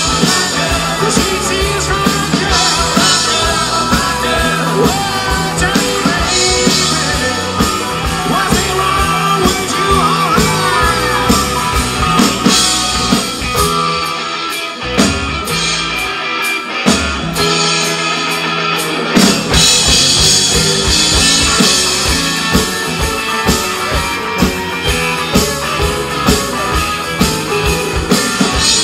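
Live rock band playing with electric guitars, drums and a male lead vocal. About halfway through, the deep bass drops away for a few seconds, then the full band comes back in.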